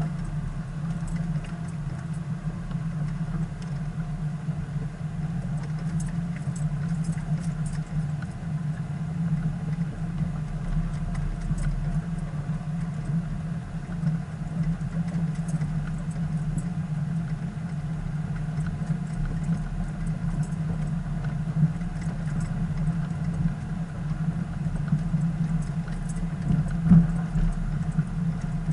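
Vehicle driving slowly on a rough dirt track: a steady engine and road drone with faint clicks and rattles, and a single louder knock about a second before the end.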